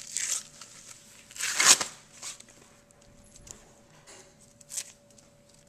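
Ears of corn being husked by hand: dry husk leaves tearing and rustling in several short bursts, the longest and loudest a little after a second in.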